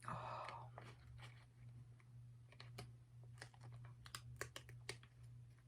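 A plastic food wrapper being handled and opened, crinkling in a run of faint, sharp crackles. The crackles are thickest between about two and a half and five seconds in.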